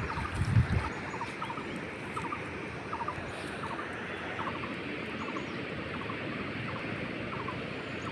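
An animal's short chirping call, two or three quick notes at a time, repeating steadily over a continuous outdoor hiss. There are a few low thumps in the first second.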